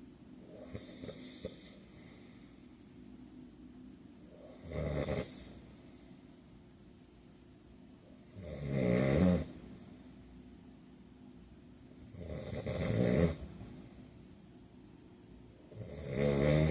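A man snoring in his sleep, one snore about every four seconds: a faint one about a second in, then four stronger ones.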